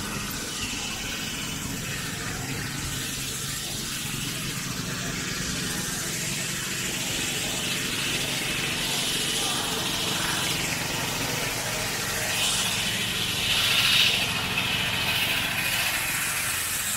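Open-air market ambience: a steady low engine hum under scattered voices, with a brief louder rush of noise near the end.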